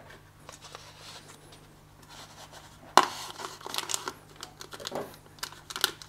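Plastic shipping bag crinkling as it is handled, with a sharp snap about three seconds in followed by a run of quick crackles.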